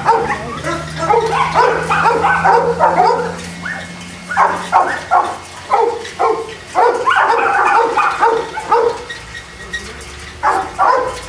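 Boston Terriers barking and yipping in quick runs of short barks, with brief lulls about four and ten seconds in.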